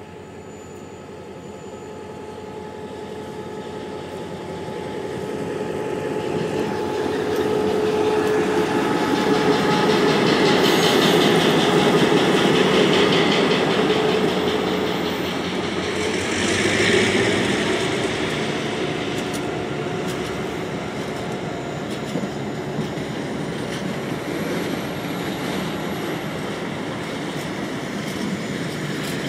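HŽ 2062 series diesel locomotive hauling a slow freight train over a level crossing. The engine grows louder as it approaches and is loudest as it passes, about ten to thirteen seconds in. After that, the hopper wagons roll by with steady wheel-on-rail noise and clickety-clack.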